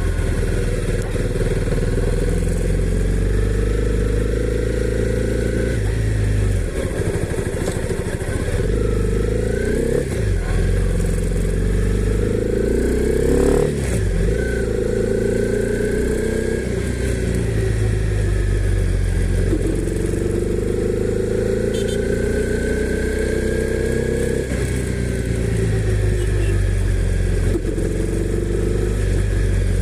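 Honda CB300R's 286 cc single-cylinder engine running under way. Its note climbs steadily in pitch and drops suddenly a few times, as at gear changes, with a stretch of falling, slowing revs near the middle.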